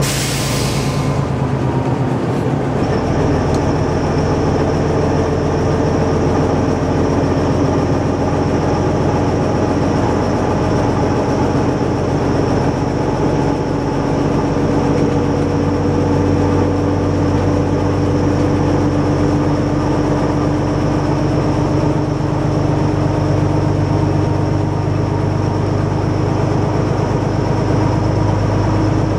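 Árpád vintage railcar heard from the driver's cab while running along the line: a steady engine drone mixed with wheel and rail noise, its note creeping slowly upward. A thin high whine sets in a few seconds in, and there is a brief hiss right at the start.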